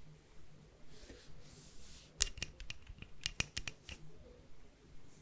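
A quick run of about a dozen sharp, crisp clicks close to the microphone, bunched between about two and four seconds in.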